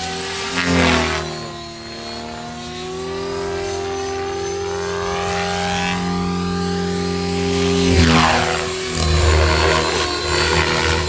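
Electric Align T-Rex 550 RC helicopter, running a 112-tooth main gear and 12-tooth pinion, in flight. Its motor, gear and rotor whine is steady. The pitch drops sharply about a second in and again near eight seconds in, where the sound is loudest.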